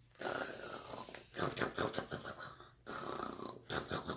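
A person imitating snoring: several long, rasping, fluttering snores in a row, the sound of Papa fast asleep.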